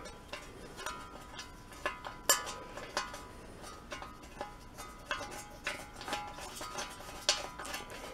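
Irregular light metallic clinks and scrapes from a small sheet-steel shovel blade being shifted against its wooden handle while a bolt hole is lined up. Some clinks ring briefly, and a sharper one comes a little over two seconds in.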